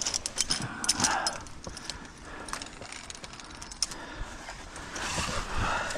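Handling noise while a rope is hauled by hand: a quick run of small clicks and light rattles in the first second and a half, then quieter rustling.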